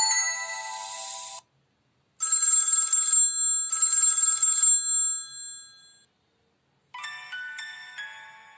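Preloaded ringtones and message tones of a Samsung SGH-U900 Soul mobile phone playing one after another. One tone cuts off about a second and a half in. Next comes a tone of two short ring bursts, each about a second long, that fades away. Near the end a new tune of quick stepping notes begins.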